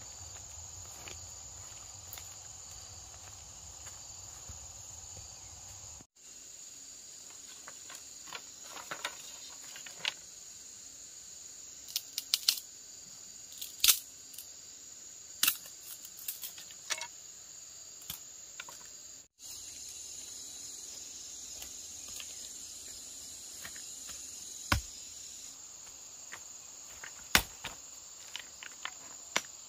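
A steady high drone of insects, with scattered sharp knocks and clacks as stones and split bamboo sticks are picked up and knocked together.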